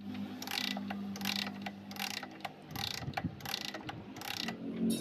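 Kickstarter lever of a Yamaha LC135 moved back and forth by hand, its kick shaft gear and ratchet rasping in repeated short strokes about twice a second. The lever is loose, the fault being shown.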